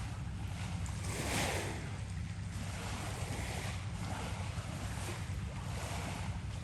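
Wind buffeting the microphone outdoors: a steady low rumble under a hiss that swells and fades about once a second.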